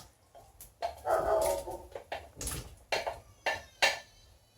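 A few short knocks and clinks as papaya pieces and a utensil go into a pot of simmering tinola broth. A brief vocal-sounding noise comes about a second in.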